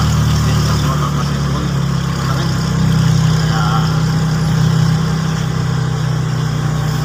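Small motor vehicle's engine running steadily while driving along a street, a constant low drone heard from inside the open-sided cab.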